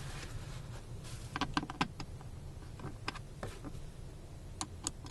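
Scattered light clicks and taps of a plastic fuel-pump access cover being set in place on the floor and its screws driven in: a quick run of clicks about a second and a half in, then a few single ones.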